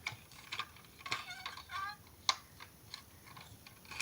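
Light, scattered clicks and taps of a toy car being handled and set down, about half a dozen sharp ticks spread irregularly, the sharpest a little past two seconds in.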